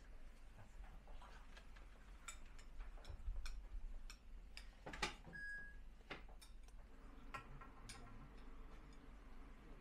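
Scattered light clinks and taps of serving spoons against metal alms bowls and dishes as food is served, at irregular intervals, the loudest about five seconds in.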